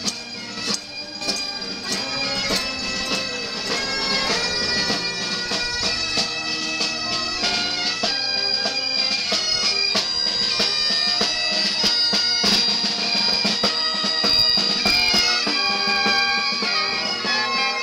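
Marching pipe band playing: bagpipes with their held drone and chanter melody over a steady drum beat, joined by saxophone and trumpet. It grows louder over the first few seconds as the band approaches.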